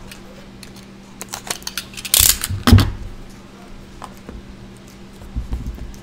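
Box cutter slicing the seal of a small cardboard trading-card box: a short, loud rasp about two seconds in, then a sharp knock. Light scrapes, taps and a few dull thumps follow as the box is handled and opened.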